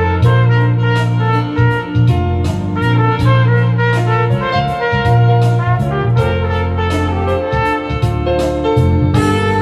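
Trumpet playing a slow, sustained melody of held notes over a backing track with a bass line and a steady drum beat.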